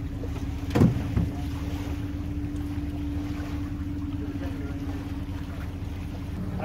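Pontoon boat's outboard motor running steadily, a low hum with a held tone. A sharp knock comes a little under a second in, the loudest sound here, with a fainter one just after.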